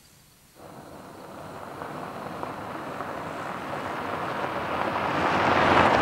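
A car approaching on a gravel road, its tyre and engine noise growing steadily louder until it passes close by near the end.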